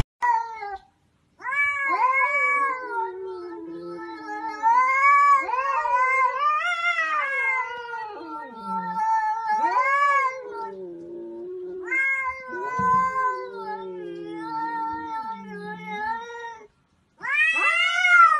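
A ginger-and-white cat caterwauling at another cat in long, wavering yowls that rise and fall in pitch, with a few short breaks between them. This is the threat yowl of a cat standoff.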